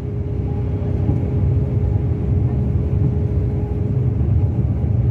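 Mercedes-Benz O-500RSD 2441 coach's rear-mounted diesel engine running steadily, a constant low rumble with a faint steady hum above it and no change in revs.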